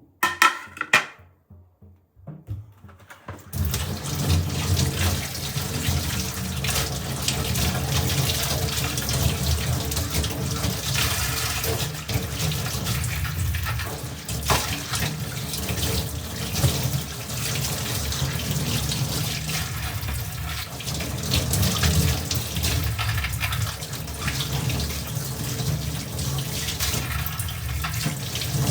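Water running steadily from a tap into a sink, starting about three and a half seconds in after a couple of short, sharp sounds.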